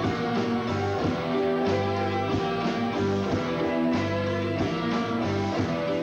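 Rock band playing an instrumental passage between verses, with strummed guitar over bass and drums.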